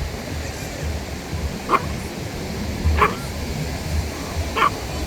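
Three short animal calls about a second apart, over a steady low rumble of wind on the microphone.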